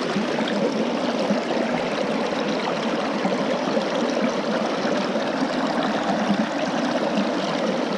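Stream water rushing and babbling steadily close by, an even wash of flowing-water noise.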